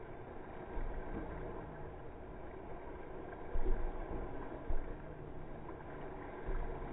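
Steady rush of water along a moving dragon boat as the crew paddles, with a few louder swells of splashing from the paddles.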